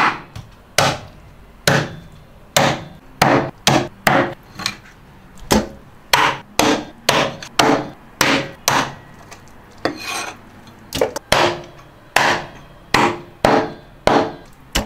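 Cleaver chopping a soft-shell turtle into pieces: a steady run of sharp, heavy chops, about two a second.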